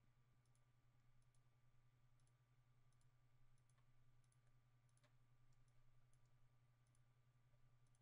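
Near silence with faint, irregularly spaced computer mouse clicks, often in quick press-and-release pairs, over a low steady hum.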